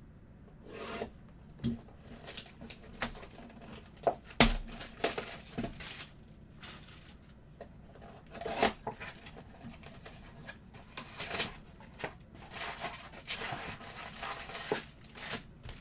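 A sealed trading card box and its foil packs being opened by hand: irregular crinkling, rubbing and tearing of wrapper and cardboard, with a sharp knock about four and a half seconds in.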